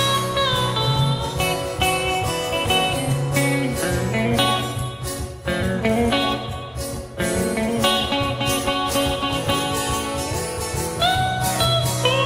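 Live blues guitar solo between sung verses: lead notes bending and sliding in pitch over a steady low backing.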